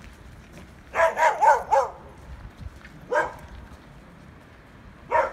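An animal calling: a quick run of four short calls about a second in, then single calls about two seconds later and again near the end.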